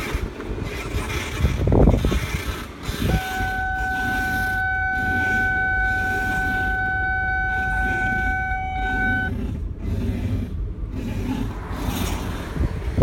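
A car squealing as its steering wheel is turned: one steady high-pitched squeal starting about three seconds in, holding for roughly six seconds, then cutting off, over the low rumble of the running car.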